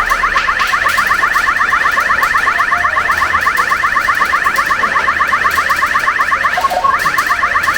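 Retro pachinko machine's electronic sound effect: a rapid run of short rising beeps, several a second, like an alarm. It breaks off briefly near the end and starts again.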